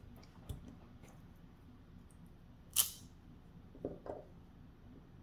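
Small handling sounds of a BiLock NG lock core being taken out of its housing: one sharp click a little under three seconds in, and two quieter knocks about a second later.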